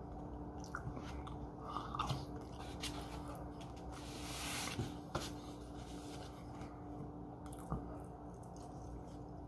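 Close-miked chewing and soft mouth sounds of a person eating barbecued meat, with a few light clicks of a metal fork against the takeout container. A brief hiss comes about four seconds in.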